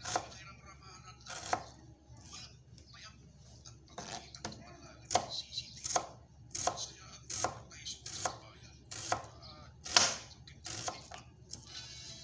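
Kitchen knife slicing a red onion on a plastic cutting board, each cut ending in a short knock of the blade on the board. A couple of cuts at first, a pause of about two seconds, then steady cuts a little more than one a second.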